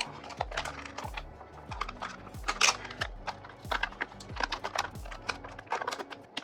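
Background music with a steady, deep electronic beat, overlaid with a scatter of light clicks and taps.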